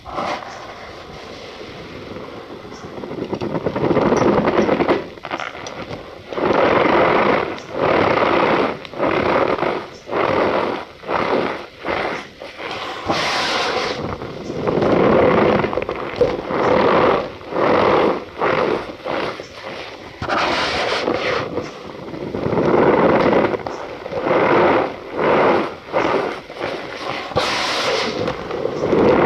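Cornstarch powder squeezed and pressed by hand, giving squeaky crunches: a run of short squeezes roughly a second apart, with a few longer drawn-out ones.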